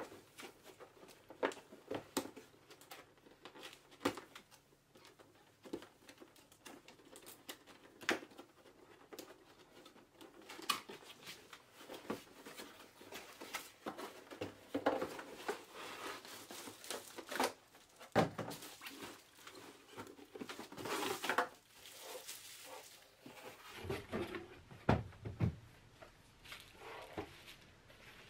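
Unboxing handling noise from a yogurt maker's cardboard box and packaging: the box knocking and sliding on a table, with cardboard, paper and plastic wrap rustling and crinkling, louder in the middle.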